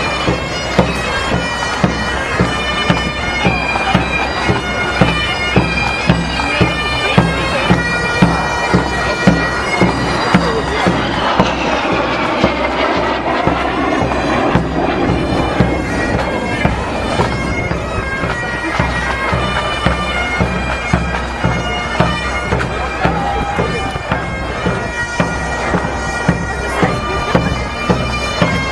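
Pipe band playing: bagpipes holding a tune over a steady drum beat.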